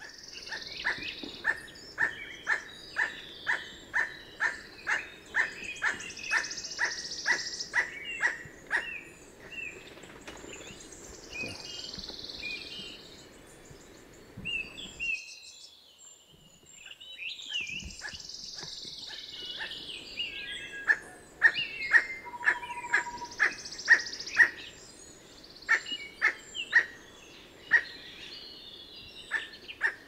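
Northern emerald toucanet giving its dog-like barking call, a steady series of short croaking notes about two a second. The series stops about nine seconds in and starts again a few seconds after a brief lull. Higher hissing buzzes come every few seconds behind it.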